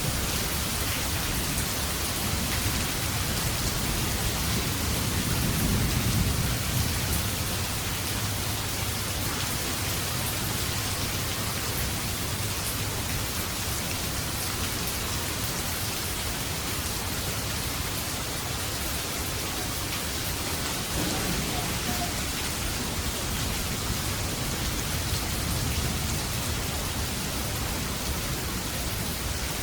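Steady rain falling, an even hiss of drops throughout, with a low rumble of distant thunder swelling about five seconds in and fading a few seconds later.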